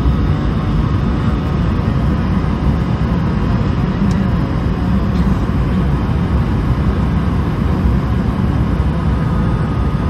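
Steady cabin noise of an Airbus A220-100 on approach, heard from a window seat: a low, even drone of airflow and its Pratt & Whitney PW1500G engines, with faint steady tones on top.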